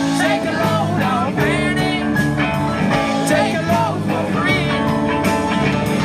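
Live rock band playing, with drums, bass, guitar and singing voices.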